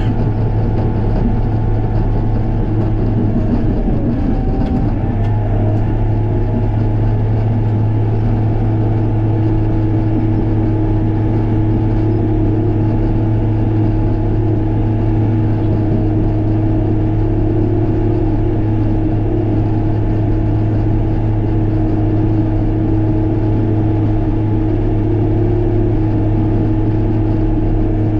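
An engine running steadily at a constant speed, a continuous low hum with a brief unsettled moment about four seconds in.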